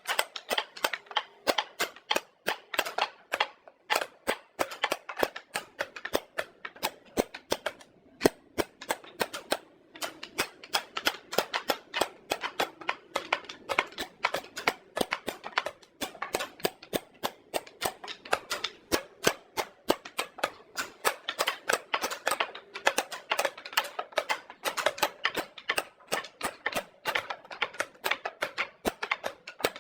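Rapid, irregular sharp taps and knocks on wood from hand work, several a second and uneven in strength.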